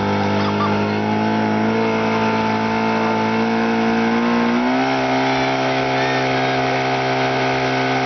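Portable fire pump engine running at a steady speed, then revving up about halfway through and holding at a higher steady speed as it is throttled up to push water into the hose line.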